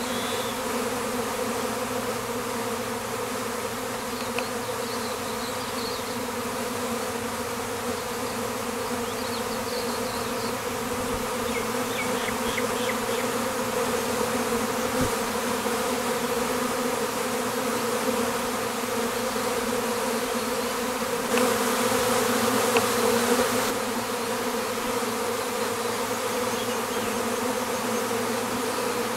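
Honey bees buzzing in flight: a steady, even hum of wingbeats, swelling louder for about two seconds a little past the 20-second mark.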